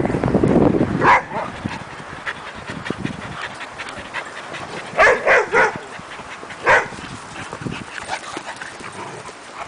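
Dogs barking in short, sharp barks: one about a second in, a quick run of three about five seconds in, and one more just under two seconds later.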